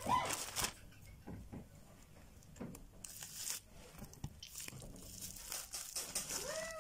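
Paper and plastic parcel packaging crinkling and tearing as it is handled and opened by hand, in several short rustling stretches.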